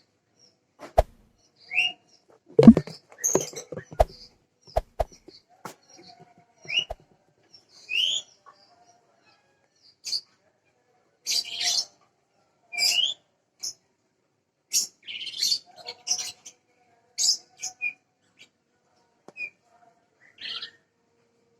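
Small birds chirping: short rising chirps and twitters every second or so. A few sharp knocks come in the first five seconds, the loudest about three seconds in.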